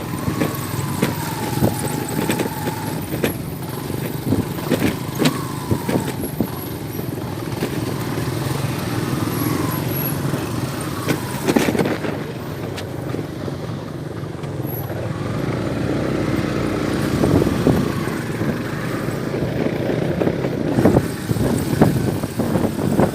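A motor vehicle running, with a steady low rumble, frequent knocks and rattles, and a few short whistling tones in the first half.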